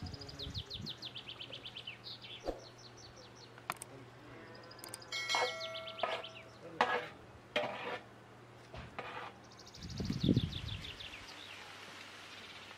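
A small songbird singing fast, descending trills of high notes several times. A few short knocks come about seven seconds in.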